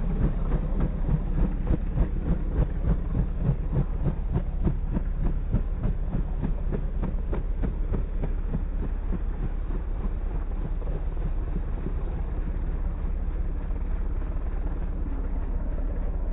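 Light helicopter's two-blade main rotor chopping, deep and slowed down, in regular pulses about two a second that give way to a steadier low rumble about halfway through.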